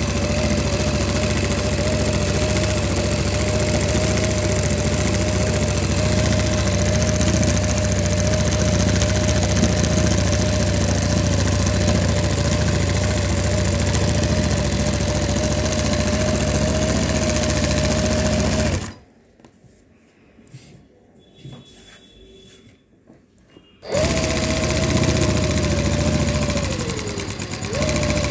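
Mannan King chainstitch embroidery machine running steadily while sewing moss stitch, with a constant whine over its rapid needle clatter. It stops suddenly about two-thirds of the way through, stays quiet for about five seconds, then starts again and briefly slows near the end before picking back up.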